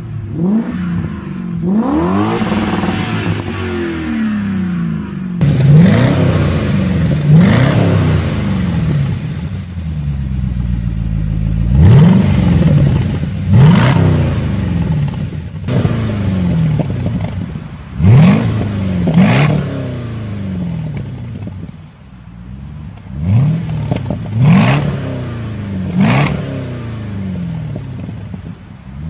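V8 engines being revved in repeated throttle blips: the engine note climbs quickly and falls back to idle about a dozen times, with a sharp crack at the top of many of the blips.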